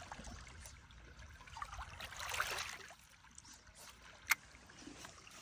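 Small waves lapping softly at the lake shore, swelling once about two seconds in. A single sharp click sounds a little after four seconds.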